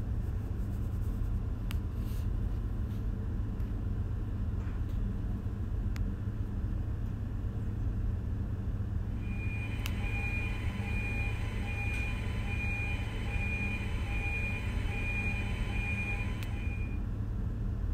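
Steady engine-room machinery hum. About nine seconds in, an alarm starts beeping at an even pace, a little more than one beep a second, and stops shortly before the end. This is the incinerator's low-voltage alarm, set off for a test by pulling the voltage sensor from its base.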